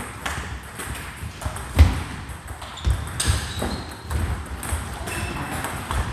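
Table tennis balls clicking off bats and table in an uneven run of sharp knocks. There are two heavier thumps about two and three seconds in, and a few brief high squeaks.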